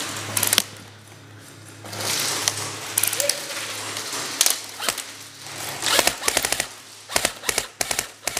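Airsoft guns firing in several short rapid bursts of sharp clicks, over a steady low hum.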